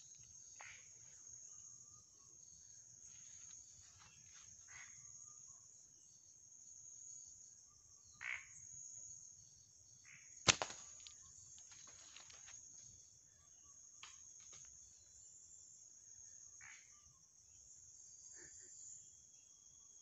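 A steady, high-pitched night chorus of crickets and other insects, with faint scattered rustles. A single sharp snap stands out about ten and a half seconds in.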